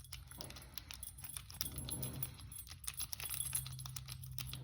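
Small metallic clicks and scrapes of a lock pick and tension wrench working in the keyway of a Tru Guard weatherproof padlock, the lock putting up more of a fight than expected. A low steady hum runs underneath.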